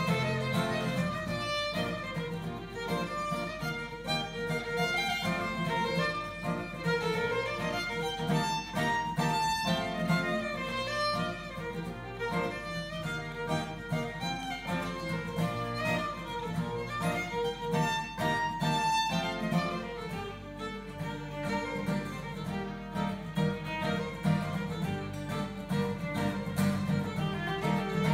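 A violin and an acoustic guitar playing an instrumental piece together, the bowed violin over the guitar's accompaniment.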